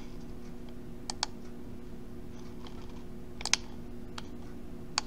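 About six short, sharp clicks of a computer mouse and keys, some in quick pairs, as a drawn line on screen is selected and deleted, over a steady low electrical hum.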